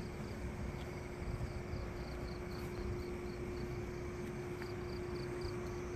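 Night insects chirping in a fast, even series of short high pulses, about five a second, that pause briefly and resume near the end, over a steady low hum and a low rumbling noise.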